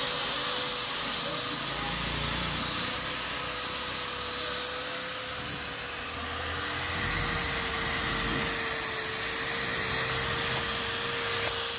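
Electric angle grinder with a sanding disc running steadily while sanding wood: a constant motor whine over the hiss of the abrasive on the wood, its pitch dipping slightly about eight seconds in.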